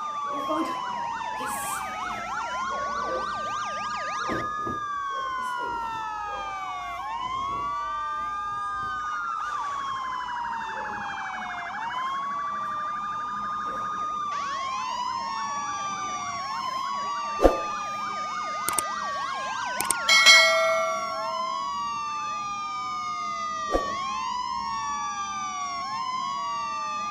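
Wailing siren sound effect, its pitch sweeping up and down over and over in several overlapping layers. A few sharp knocks come through it, and a short, loud buzzy burst about two-thirds of the way in.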